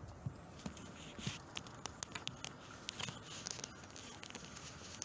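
Irregular light clicks and rustles of something being handled close to the phone's microphone inside a parked car, over a faint steady hiss.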